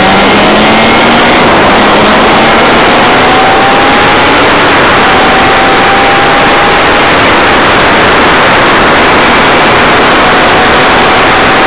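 Loud, steady wind rush over the camera microphone of a motorcycle at speed, with the engine note faint beneath it. The engine's pitch rises slowly through the first few seconds, then holds steady.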